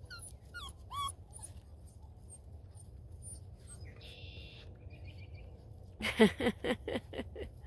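Beagle puppy yipping in a quick run of about six sharp barks near the end, with small birds chirping in the first second or so.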